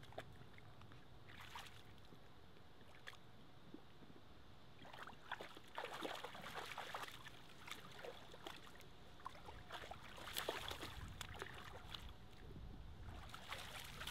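A dog splashing about in shallow water around a large branch: faint, irregular splashes and drips that come in bursts, busiest about halfway through and again about ten seconds in.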